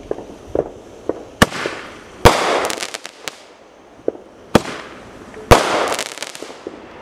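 Navy military Roman candle firing: sharp pops, with the loudest bangs about two and five and a half seconds in, each trailing off into about a second of crackling.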